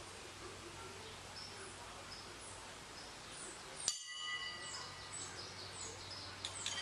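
Backyard ambience with faint, short bird chirps. About four seconds in, a single sharp metallic clang rings on for about a second with several clear tones.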